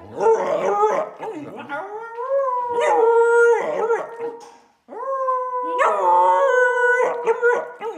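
Samoyed howling: a few short broken yowls, then two long howls that each rise in pitch and then hold steady, with a brief pause between them about five seconds in.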